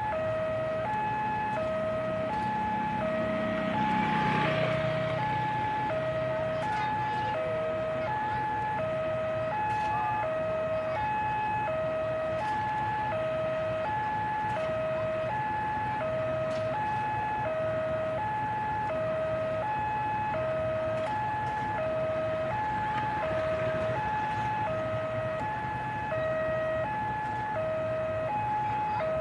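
Railway level-crossing alarm sounding, an electronic warning that alternates two tones over and over at an even pace, signalling that a train is approaching. A passing engine swells briefly about four seconds in.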